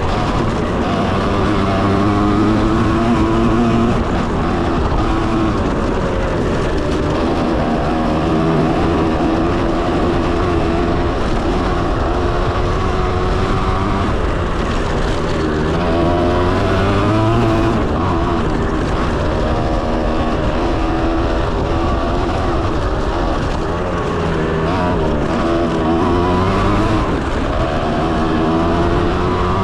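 Kawasaki KX 125's two-stroke single-cylinder engine running under riding load, its pitch repeatedly rising and falling as the throttle opens and eases off through the gears.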